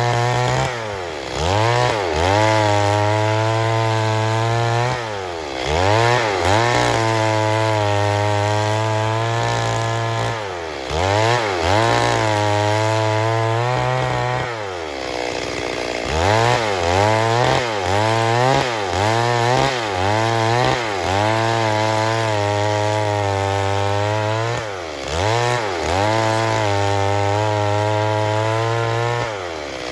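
Stihl MS 382 two-stroke chainsaw running near full throttle, its engine speed dipping and recovering about a dozen times. There is a longer, deeper drop in speed about halfway through.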